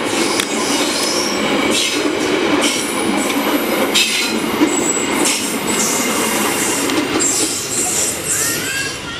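Executive-class passenger train carriages rolling past close by: a steady rumble of steel wheels on rail, with intermittent high wheel squeal and occasional clacks over the rail joints.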